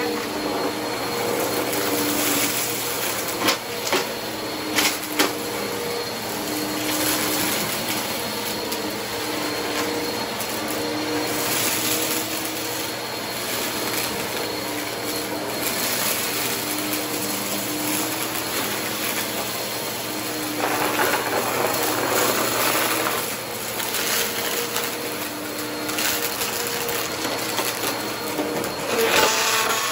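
Two upright vacuum cleaners running together, sucking confetti and sequins up off a carpet. The motors run steadily, with a few sharp clicks as pieces are pulled in and a rougher, louder stretch a little past two-thirds of the way through.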